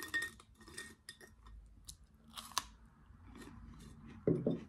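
A hand rummaging in a glass jar of freeze-dried fruit slices, then crisp crunching as a dry slice is bitten and chewed. A brief, louder low sound comes near the end.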